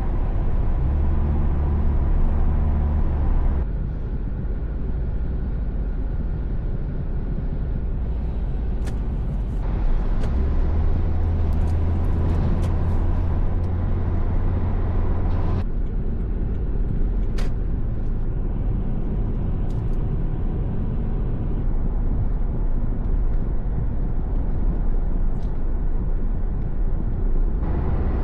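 Steady low road-vehicle rumble with a strong deep hum and a few faint clicks. It changes character abruptly several times, where separate recordings are joined.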